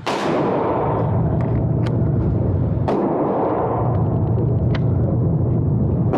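A sudden loud bang opens onto a steady, loud, low rumbling noise, with a few sharp gunshot-like cracks over it at irregular moments.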